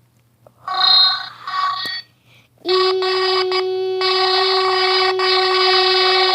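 Voice-changer toy on its robot setting, giving out a buzzy electronic monotone: a short two-part burst, then a long steady held tone from a bit under three seconds in.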